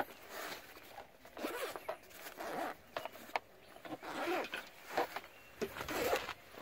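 Zipper on a fabric gun bag being pulled open in a series of short strokes, with fabric rustling and a couple of sharp clicks from handling the gear.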